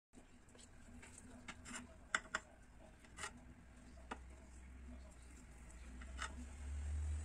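Knife cutting into a layered sponge cake in a glass baking dish: scattered sharp clicks as the blade taps the glass, over a low rumble that grows louder near the end.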